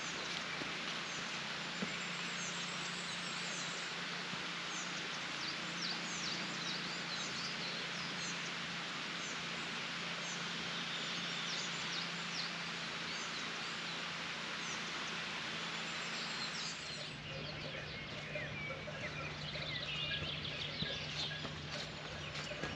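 Many small birds chirping over a steady rushing noise. The rushing drops away about seventeen seconds in, leaving the birdsong and a low hum.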